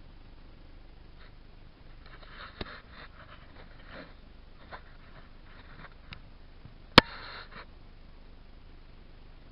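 Quiet handling and rustling noises with a few short sniffs, a few small clicks, and one sharp click about seven seconds in.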